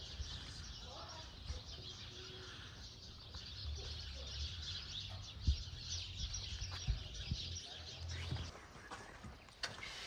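Birds chirping over a low rumble, with a few soft thumps in the second half.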